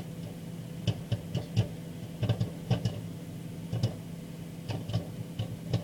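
A bag of microwave popcorn popping inside a running microwave oven: sharp irregular pops, about two or three a second, over the oven's steady hum. The popping is still coming quickly, not yet slowed to the two-second gaps that mean it is done.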